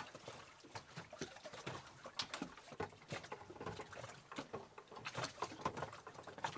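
Faint, irregular soft clicks and knocks as the plastic tiller section of an ePropulsion Spirit 1.0 EVO electric outboard is handled and fitted onto the motor.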